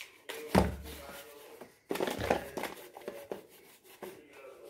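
Plastic toys being handled and knocked about: a sharp knock about half a second in, then a burst of clatter and rustling near the middle.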